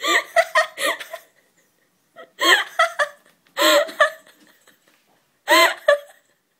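A person laughing in short, high-pitched giggling bursts: a quick run of giggles at the start, then three more separate bursts.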